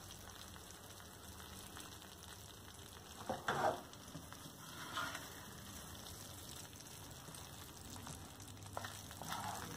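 Faint sizzling of hot ghee-rich semolina halwa in a nonstick pan as a wooden spatula scoops it out, with a few brief louder scrapes and knocks, the loudest about three and a half seconds in.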